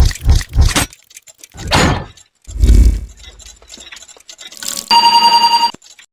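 Edited transition sound effects: a quick swish, a low thump, then a steady electronic beep held for about a second near the end.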